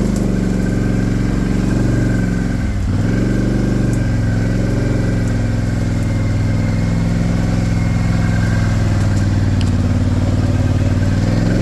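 Polaris Sportsman 850 ATV's twin-cylinder engine running steadily under a rider at trail speed. The engine note drops briefly about three seconds in as the throttle eases, then climbs back, and dips once more near the end.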